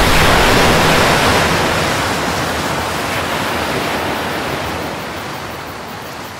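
A rushing wash of noise, like surf or a waterfall, fading steadily over several seconds: a sound-design effect in the projection show's soundtrack.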